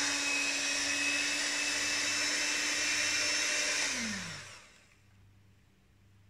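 Electric hand mixer running steadily with its beaters in cake batter, then switched off about four seconds in, its whine falling in pitch as the motor spins down.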